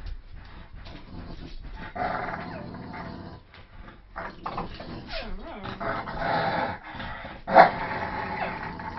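Dogs growling in play while tugging at a toy in a game of tug of war, rough and uneven, with one loud, sharp outburst about two-thirds of the way through.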